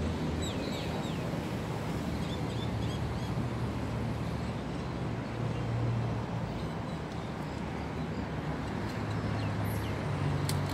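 Low, steady engine hum of a vehicle running nearby, swelling and easing, with a few short high chirps in the first few seconds and a couple of sharp clicks near the end.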